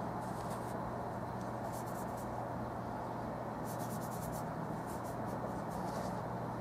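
Steady hum and hiss of room noise, with faint quick scratchy strokes several times: a paint brush being worked.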